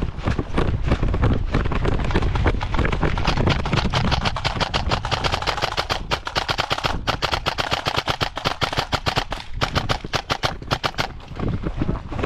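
Custom airsoft rifles firing long strings of rapid, evenly spaced shots. The firing breaks off about eleven seconds in.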